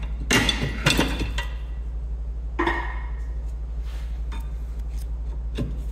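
Rear brake pads being levered out of the caliper carrier with a flat tool: metal-on-metal clicks and knocks in the first second and a half, a short ringing scrape about two and a half seconds in, then a few light taps.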